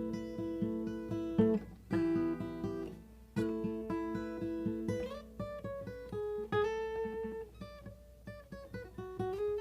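Acoustic guitar played solo: chords struck in quick strokes, then a looser picked passage of ringing notes, with short breaks between phrases.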